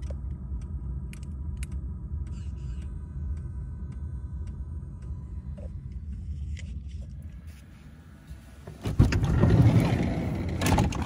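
A steady low rumble, then, about nine seconds in, a loud rushing noise lasting about two seconds, like wind buffeting the microphone as the camera is carried outside.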